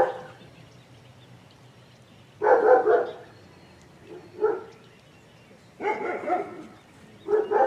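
Puppy barking in short bursts, about five times, a second or two apart.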